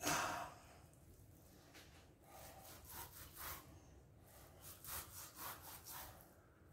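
Serrated chef's knife sawing through brisket fat on a plastic cutting board: faint rasping strokes, about two a second, from around two seconds in. A brief louder handling sound at the start as the raw brisket is moved on the board.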